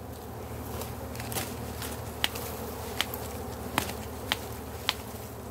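Swarm of red dwarf honeybees (ong ruồi) buzzing steadily around their exposed comb, a large colony disturbed as the comb is cut. About six sharp clicks from pruning shears at the branch are heard over the hum.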